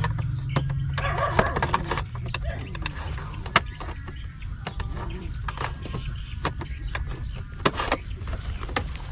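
Irregular clicks, scrapes and rattles of a wire-mesh snake trap being unfastened with a thin wire and slid out of its plastic sleeve, over a steady high insect drone.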